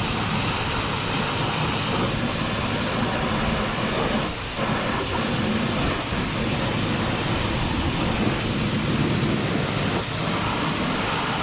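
High-pressure washer running, its water jet spraying against farm machinery: a steady, loud mix of pump noise and spray that dips briefly about four seconds in.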